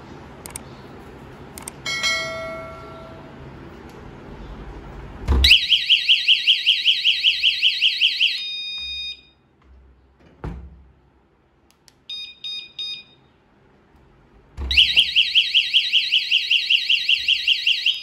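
A battery-powered magnetic door/window security alarm, rated 108 dB, sounds its loud, fast-pulsing warbling siren twice, each time for about three seconds. A knock comes at the start of each burst and a short steady tone at the end. A few short beeps come between the two bursts.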